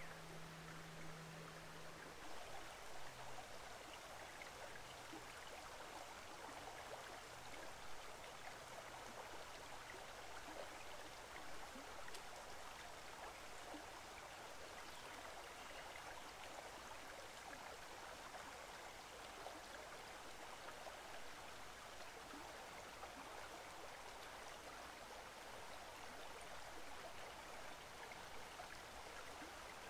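Faint, steady rush of a shallow forest stream running over rocks. A low hum is heard in the first couple of seconds and fades out soon after.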